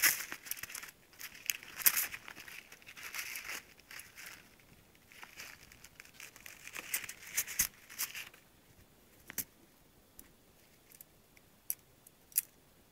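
Packing material crinkling, rustling and clicking as it is handled, busy for about eight seconds, then only a few small taps.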